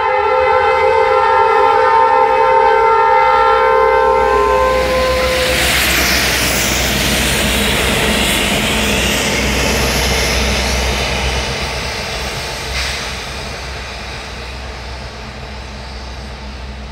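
Norfolk Southern diesel locomotives' air horn sounding one long multi-note chord, cutting off about four to five seconds in. Then comes the heavy rumble of the locomotives passing close by, fading away near the end.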